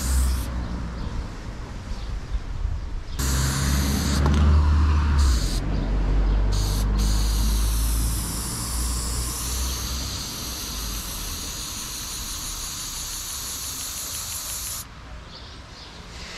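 Aerosol spray-paint cans hissing as black outlines are sprayed onto a wall, in several bursts with short breaks. The last burst runs about seven seconds and cuts off shortly before the end. A low rumble runs underneath.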